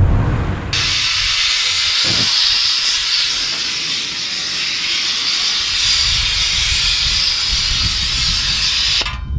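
Low rumble, then a loud, steady hiss at a truck tire's unseated bead as starting fluid sprayed into it burns in flames instead of exploding. The owner puts this down to the spray being old or too cold. The hiss cuts off suddenly near the end.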